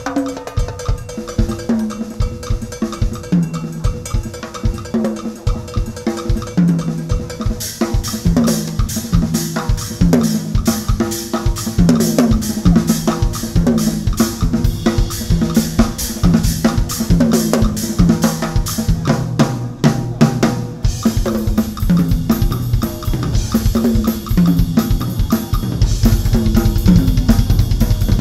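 Drum kit played live in a fast drum solo, bass drum and snare with rimshots, over backing music with a stepping bass line. Cymbals come in about eight seconds in and keep ringing. The low end grows heavier near the end.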